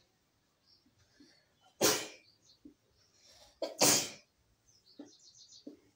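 Marker writing on a whiteboard: faint scratches and small squeaks of the felt tip on the board. Two loud, short rushes of noise, about two seconds apart, stand out above the writing.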